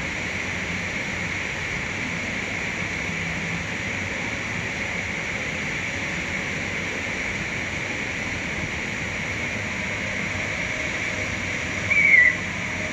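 Steady rushing hiss of falling or flowing water. About twelve seconds in comes one short, high chirp that drops slightly in pitch.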